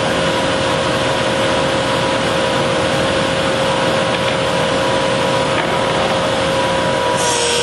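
Thickness planer running with a steady motor noise and a constant whine. Near the end the whine drops slightly in pitch and the sound changes, as a board starts feeding into the cutter head.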